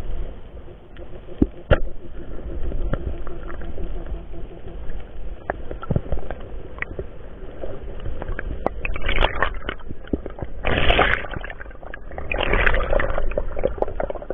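Muffled underwater sound picked up through a diving camera's waterproof case: scattered clicks and knocks, then loud bursts of rushing water noise about nine, eleven and thirteen seconds in, as the diver moves in the water.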